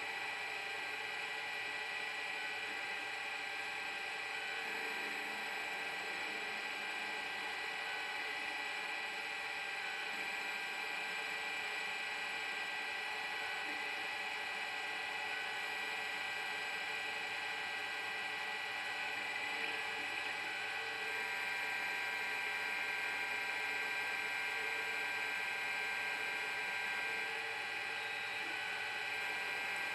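Metal lathe running under CNC control while turning a test part: a steady spindle hum with several constant whining tones. It gets slightly louder about two-thirds of the way through.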